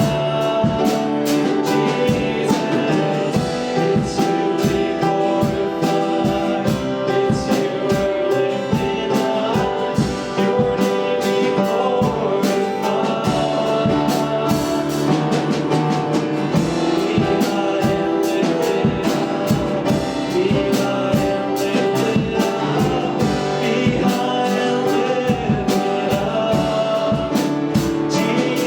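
Gospel worship music: singing over a band with drum kit and guitar, with a steady beat.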